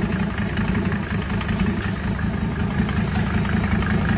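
Car engine running at a steady idle while hanging from an engine hoist, lifted partly out of its engine bay.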